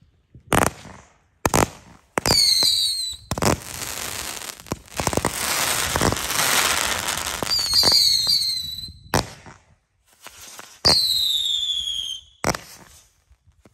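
Ground-launched fireworks going off: a series of sharp bangs, three whistles that each fall in pitch, and several seconds of dense crackling in the middle.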